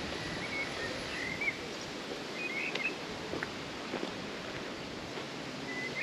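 Small birds chirping in short bursts over a steady outdoor background hiss, with a few soft footsteps.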